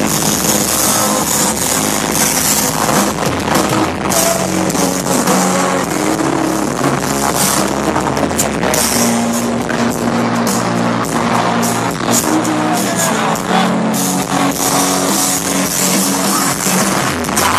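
Live rock band playing loudly, heard from within the crowd: drums with repeated cymbal crashes over held bass notes.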